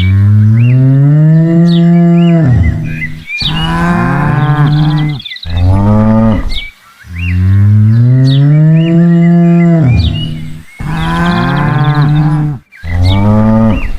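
Cows mooing: three long, loud moos, each rising and then falling in pitch, followed by the same run of three moos again.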